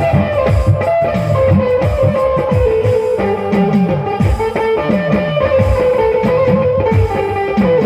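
Instrumental music: a plucked, guitar-like melody over a beat of repeating bass notes that drop in pitch.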